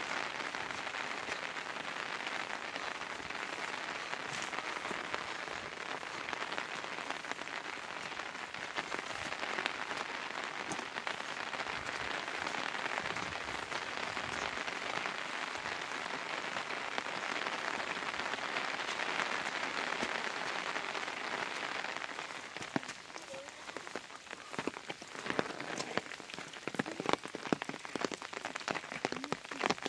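Steady patter of falling water that thins to scattered separate drips about 22 seconds in.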